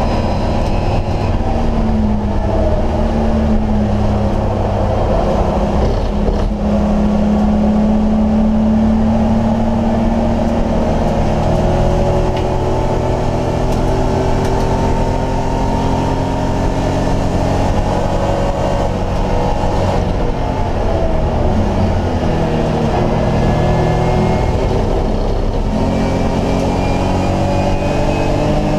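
BMW E30 race car's engine at race pace, heard from inside the stripped cabin, revving up and down through the gears. Its pitch drops around twenty seconds in as it comes off the throttle, then climbs again near the end.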